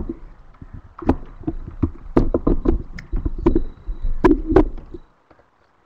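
Microphone handling noise: irregular knocks and clicks with low thumps, which stop about five seconds in.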